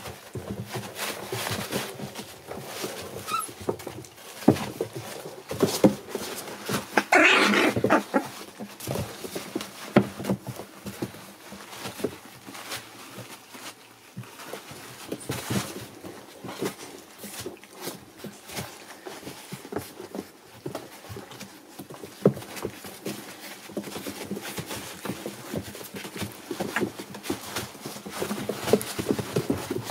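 A litter of American Bully puppies jostling together: scuffling, scratching and rustling on plastic-backed puppy pads, with small puppy whimpers. A louder burst of noise comes about seven seconds in.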